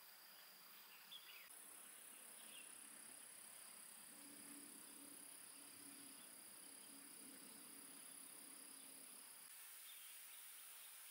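Very faint outdoor ambience of insects singing: a steady high-pitched tone over soft hiss, with a faint low broken hum through the middle.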